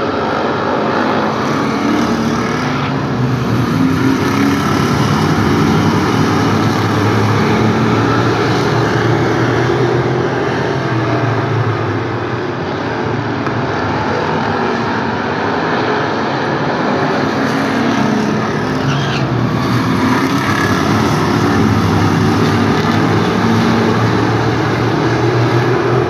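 Several hobby stock race cars' engines running together as the pack circles the oval, a steady drone that rises and falls slightly as cars come around.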